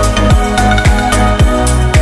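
Upbeat electronic backing music with a steady kick-drum beat, about two beats a second, under sustained melodic tones.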